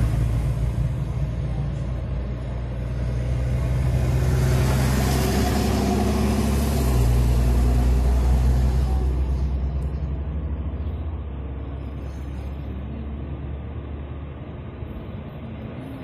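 Car engine running with tyre and road noise, heard from inside the cabin while driving. The engine hum changes note about seven seconds in, and the sound gets quieter over the last few seconds.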